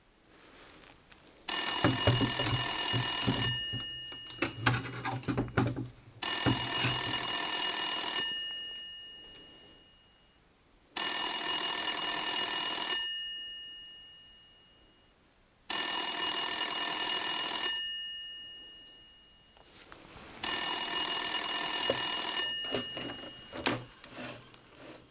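Rotary-dial desk telephone's bell ringing five times. Each ring lasts about two seconds and a new one starts roughly every five seconds. After the first ring and again after the last there are faint clicks and rattles.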